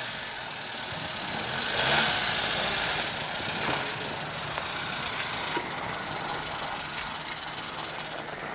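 Suzuki Samurai SJ413's 1.3-litre four-cylinder petrol engine running as the jeep crawls through snow, revving up briefly about two seconds in.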